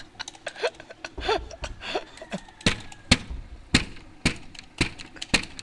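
A run of sharp knocks or taps, irregular, about two or three a second.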